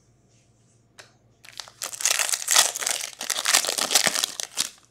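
Plastic wrapper of a Bowman's Best baseball card pack being crinkled and torn open by hand: a single click about a second in, then about three seconds of dense, irregular crackling.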